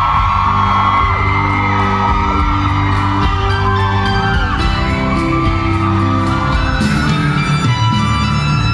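Live pop band music played over a PA in a large hall, with whoops and shouts over it.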